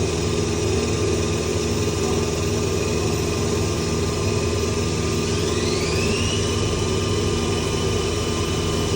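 CNC lathe running with a steady machine hum. A little past halfway, a spindle whine rises in pitch over about a second and then holds steady.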